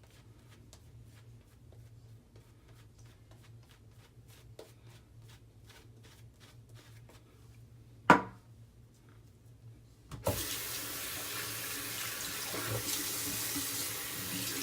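Faint, quick scratching strokes of a double-edge safety razor cutting stubble, then one sharp knock a little past halfway. For the last few seconds a faucet runs steadily into a sink.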